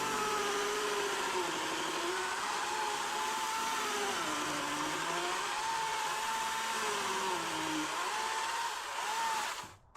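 Electric power tool motor running under load, its pitch sagging and recovering several times as it works, then cutting off abruptly near the end.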